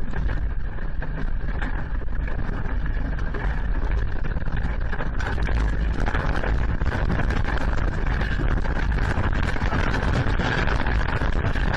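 Steady, loud rumbling noise with a dense crackle through an outdoor camera's microphone while the camera shakes in an earthquake.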